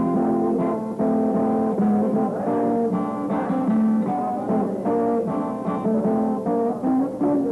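Guitar music with plucked notes and strummed chords.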